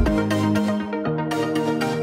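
Electronic background music in a beatless passage: held synthesizer chords with no drum. A high hiss fades out about two-thirds of a second in and comes back just past a second in.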